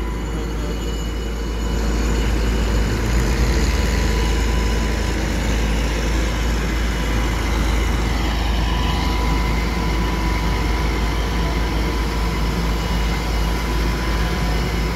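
New Holland self-propelled forage harvester's diesel engine running under heavy load, a steady deep drone with a thin steady whine over it, getting louder about two seconds in as it takes the strain of towing a tractor and trailer.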